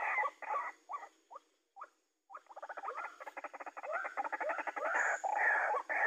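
White-breasted waterhen calling with repeated croaking notes. The notes thin out and stop briefly about two seconds in, then resume as a fast chattering run before the slower croaks return near the end.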